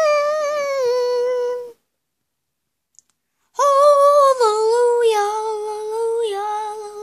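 A child's voice singing long held notes, each stepping down in pitch. The voice cuts off suddenly into dead silence for about two seconds before it starts again.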